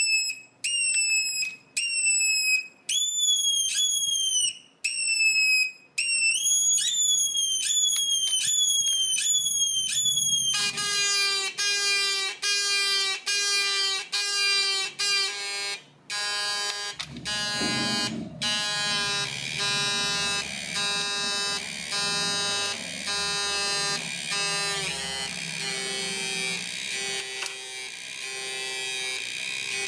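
A homemade sound-effects circuit, a two-transistor astable multivibrator feeding a small transistor amplifier and loudspeaker, making electronic beeps. For the first ten seconds it gives a run of short high chirps, each falling in pitch. It then changes to a lower pulsing warble, about two pulses a second, whose tone keeps shifting as the switches and potentiometers are adjusted.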